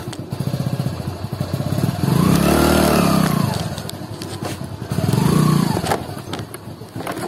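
Motorcycle engine running, revving up and easing off twice, with the peaks about two and a half and five and a half seconds in.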